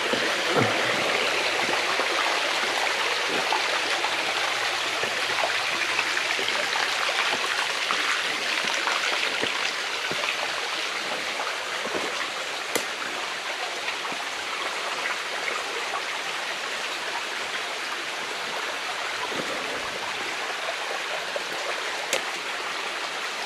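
Creek water rushing steadily over rocks in cascades, easing slightly in level as it goes. A couple of sharp clicks come about halfway through and again near the end.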